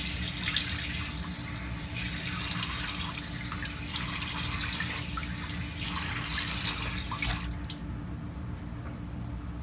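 Cold water running from a bathroom tap into the sink while it is scooped and splashed onto the face in surges about every two seconds. The water sound stops sharply near the end.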